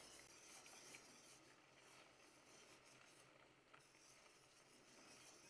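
Near silence, with faint scraping and ticking of a wire whisk stirring a thick cream sauce in a stainless steel pot.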